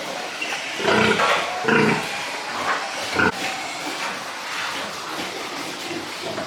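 Pigs grunting and squealing: two loud calls about a second in, then a short sharp one a little after three seconds.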